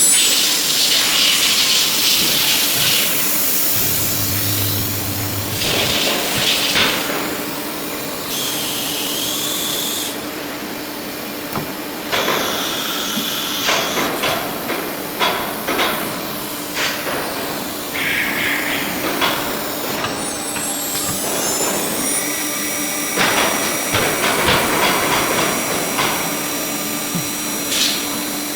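Blue Elephant 1325ATC four-axis CNC router running, with a steady machine hum, scattered clicks and knocks, and short hisses. About twenty seconds in, a high whine rises as the spindle speeds up.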